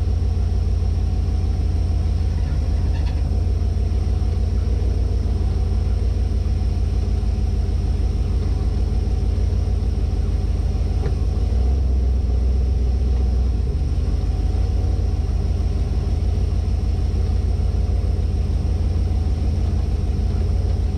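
1972 Winnebago Brave motorhome's engine and drivetrain running while driving, heard from inside the cab as a steady low rumble that swells briefly near the middle.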